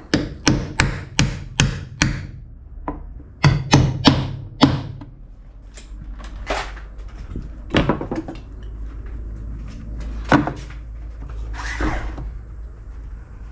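Claw hammer striking a steel nail punch to drive a nail in: a quick run of about six sharp taps, then about four more after a short pause. A few single knocks follow.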